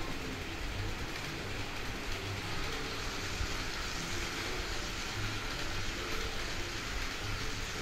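HO-scale model of a JR West 923 series Doctor Yellow shinkansen running on layout track, its wheels and motor giving a steady rumble and faint hum as it passes close by.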